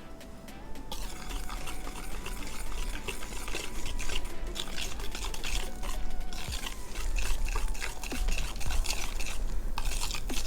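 A whisk stirring a thick chickpea-flour and coffee-creamer batter in a bowl: a busy, irregular run of soft wet clicks and scrapes that starts about a second in.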